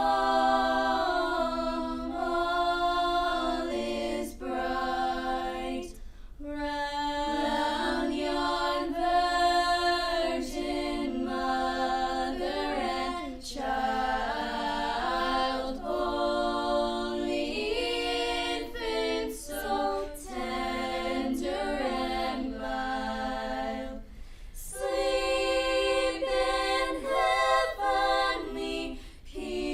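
Choir singing a cappella in several voice parts: slow, held phrases with short breaks between them.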